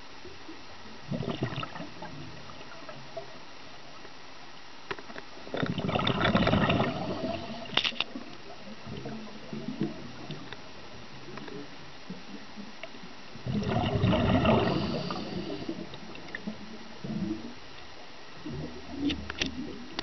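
A scuba diver's exhaled breath bubbling out of the regulator underwater, heard as two loud gurgling bursts of a couple of seconds each, about eight seconds apart, with shorter fainter bubble bursts near the start and end, over a steady underwater hiss.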